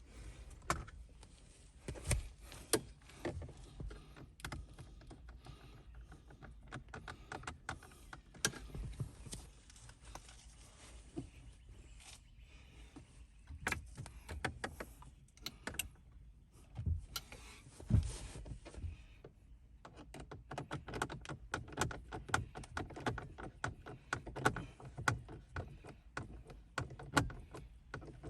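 Irregular clicks, taps and knocks of hands and tools handling car interior parts, with a few louder knocks about two seconds in and near the middle, and a denser run of rapid clicking in the last third.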